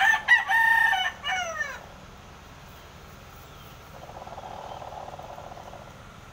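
Gamecock rooster crowing once, a loud cock-a-doodle-doo of under two seconds that ends in a falling tail. A couple of seconds later comes a fainter, rapid rasping sound.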